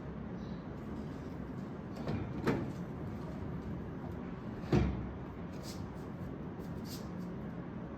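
Two short knocks about two seconds apart, the second louder, over a steady low background noise, with a few faint ticks.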